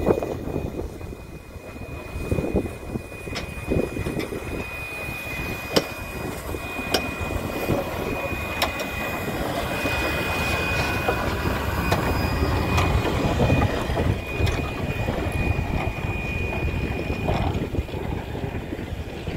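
South Australian Railways T-class 4-8-0 steam locomotive T251 rolling slowly past at close range. A low rumble of wheels and running gear builds as it draws level. There are occasional clanks, and a thin high steady tone lasts most of the way.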